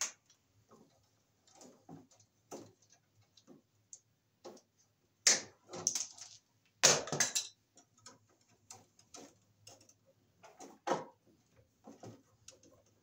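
Irregular clicks, ticks and rustles of yellow 12/2 electrical cable and its wires being handled and pulled by hand, with a few sharper snaps, the loudest around the middle.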